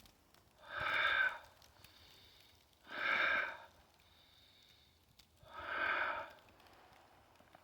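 A man's heavy, noisy breaths taken in time with squat reps: three hard breaths about two and a half seconds apart.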